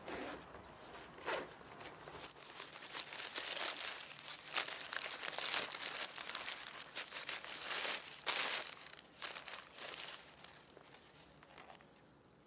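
Thin paper bag crinkling and rustling in irregular bursts as it is opened and a bread roll is unwrapped from it, busiest in the middle and dying away about a second before the end.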